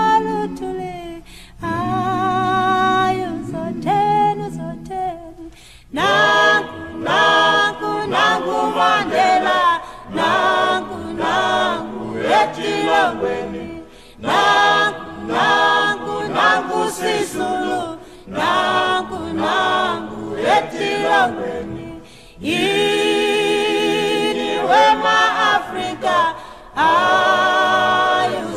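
Background music: an a cappella choir singing in several voices, in phrases broken by short pauses.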